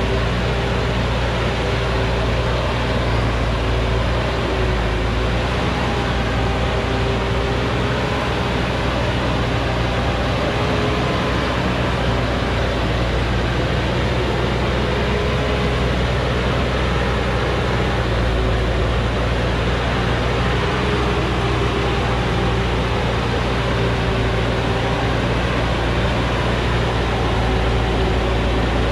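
Truck's diesel engine running steadily as the truck crawls up a dirt forest track, a constant drone with a slightly wavering pitch and no breaks.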